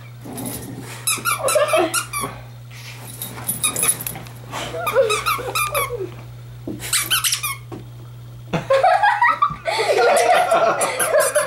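Squeaker inside a plush dog toy squeaking in repeated short bursts as a small dog chews and bites it, with a longer run of squeaks near the end.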